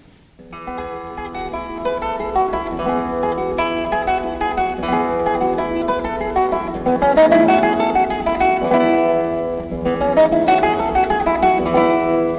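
Plucked string instrument playing a quick, lively melody with many notes, starting about half a second in.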